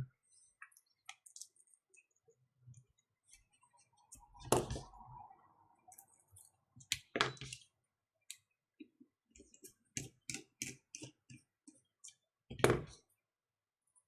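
Small clicks and taps of a precision screwdriver working tiny Torx T5 screws out of a smartwatch case. There are three louder knocks about four and a half, seven and twelve and a half seconds in, and a quick run of clicks in the last third.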